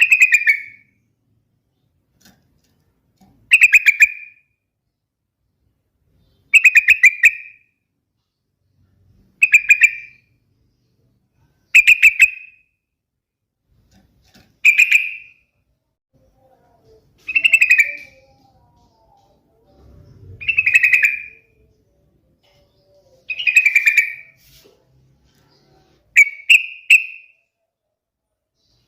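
Yellow-vented bulbul (trucukan) singing: short, bubbly whistled phrases repeated about every three seconds, ten in all, the last broken into quick bursts.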